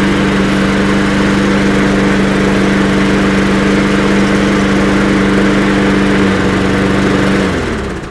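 Petrol lawnmower's Briggs & Stratton engine running steadily after a top-up of fresh petrol cured its failure to start on stale fuel. Near the end the engine is shut off and winds down, its pitch falling as it stops.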